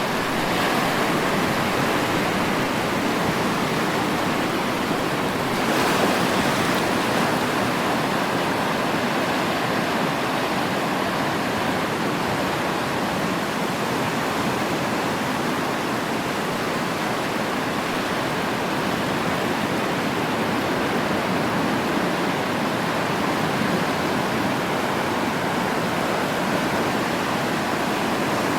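Sea surf: a steady wash of waves on the shore, with one wave breaking a little louder about six seconds in.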